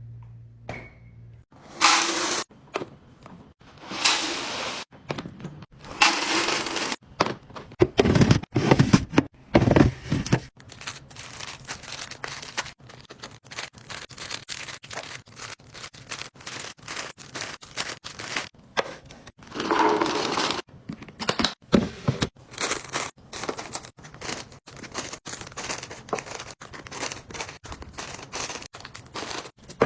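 Packaging being crinkled and torn open, with irregular knocks and scrapes from items being handled.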